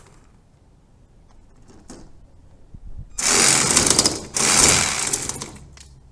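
Power saw cutting in two short runs of about a second each, with a brief pause between them.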